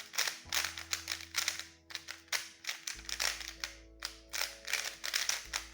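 QiYi QiMeng V2 budget plastic 3x3 speed cube being turned quickly: a fast, irregular run of plastic clicks and clacks as the layers snap round. Soft background music with steady low notes runs underneath.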